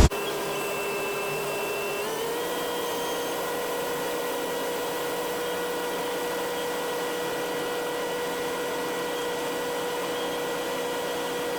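Steady machine whine from a motor. It steps up slightly in pitch about two seconds in, then runs on evenly.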